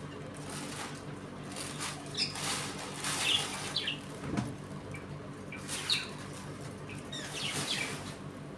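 Budgerigars in an aviary colony giving short chirps, with several bursts of wing flapping.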